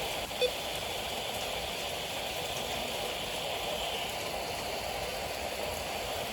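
Heavy rain pouring steadily during a storm, with a short click about half a second in.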